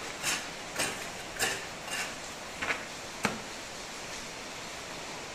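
Rhythmic scraping strokes on a cement-plastered wall, about two a second, that stop a little over halfway through, followed by one sharp click.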